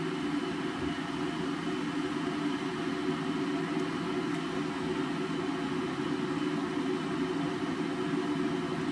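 Steady whirring hum of a running kitchen appliance, unchanging throughout.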